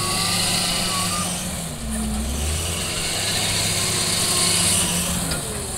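Wheel loader's diesel engine running under load as it lifts a bucket of sand, its low note shifting about two seconds in.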